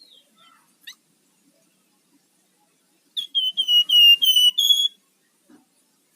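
Flamboyan (Javan fulvetta) singing: a few faint chirps, then about three seconds in a loud, rapid run of about eight clear whistled notes, each dipping slightly in pitch, ending on a higher note.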